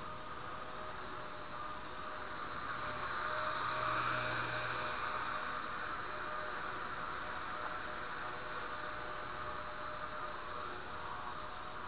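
Small electric RC helicopter, a Blade 130 X, flying close: its motor and rotors make a steady whine and hiss that swells about four seconds in and then eases off.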